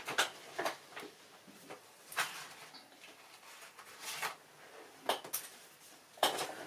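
Scattered small clicks and knocks of miniature dolls-house pieces being handled and set in place by hand.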